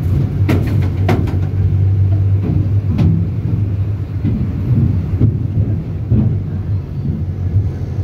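Minibus driving across a steel truss bridge, heard from inside the cabin: a steady low engine and road drone, with a few sharp clacks and rattles in the first three seconds.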